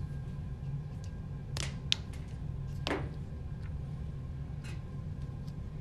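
A few short, sharp clicks: flush-cut pliers snipping the flared end off a clear plastic ink tube, over a steady low hum.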